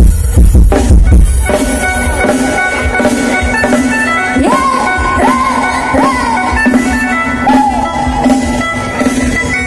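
Loud Thai procession music from a sound truck's loudspeaker system. Heavy bass beats drop out about a second and a half in, leaving a steady held drone under a melody that slides up in pitch several times.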